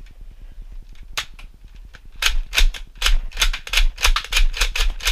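Nerf Modulus Tri-Strike blaster being primed and fired in quick succession from a 25-dart Rampage magazine: a single click about a second in, then a fast run of sharp plastic clacks from about two seconds in, three or four a second.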